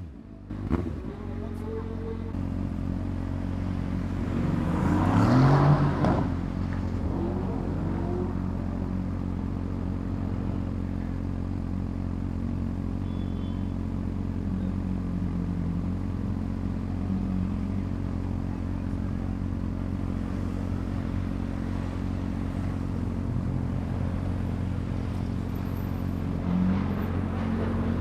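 Motorcycle inline-four engine with an aftermarket exhaust idling steadily, with a short rev just after the start and a louder engine rev rising and falling about five seconds in.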